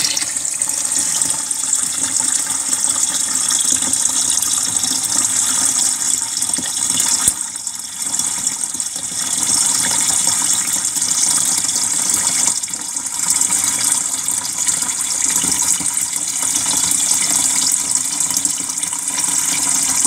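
Water pouring steadily from the fill inlet into the tub of a Zeny portable washing machine, splashing into the water already there as the tub fills toward the medium line. The flow dips briefly about eight seconds in.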